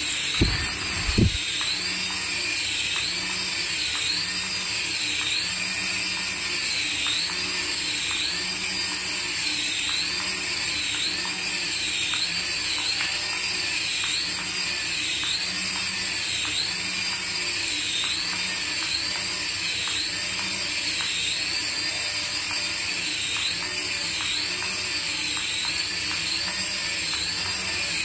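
Small toy RC helicopter with coaxial rotors flying, its tiny electric motors giving a high whine that wavers up and down over and over. Two low knocks come about a second in.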